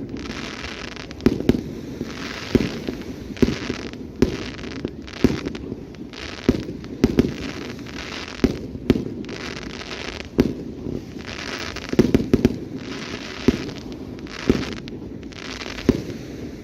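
Aerial fireworks display: a steady run of booming shell bursts, about one a second, with crackling and fizzing from the bursting shells between them.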